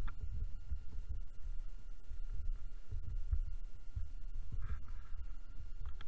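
Uneven low rumble and irregular thumping of a boat-mounted camera's microphone being buffeted as the boat moves on the river, with a faint steady high whine underneath.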